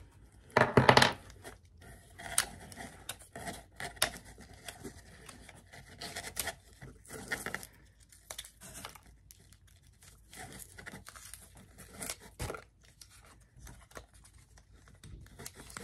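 Small cardboard makeup boxes being handled and picked open by hand: irregular rustling, scraping and tearing of packaging with scattered small taps and clicks, the loudest a burst about a second in.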